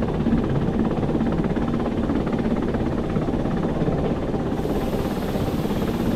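Rack-and-pinion electric train running steadily downhill: a continuous rumble with a fast, even clatter from the wheels and the cog on the rack rail.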